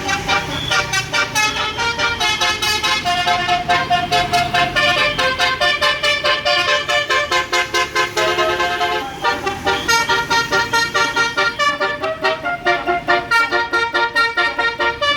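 Bus basuri telolet horn playing a fast melody of short, rapidly repeated horn notes, several a second.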